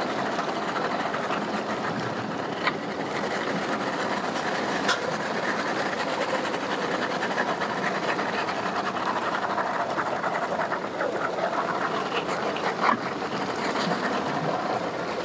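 Outboard boat motors idling with a steady mechanical clatter, with a few sharp clicks.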